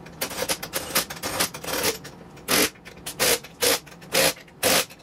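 Cordless impact wrench running a wheel's lug nuts down and tightening them. For about two seconds it gives a quick, uneven string of buzzes, then short hammering bursts come about twice a second as the trigger is pulsed: "ugga-duggas".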